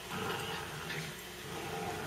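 Small dogs play-wrestling, making low, faint dog vocal sounds.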